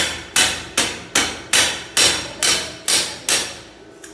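Hammer blows on metal being shaped: a steady run of about nine ringing strikes, a little over two a second, each ringing on until the next. The blows stop shortly before the end.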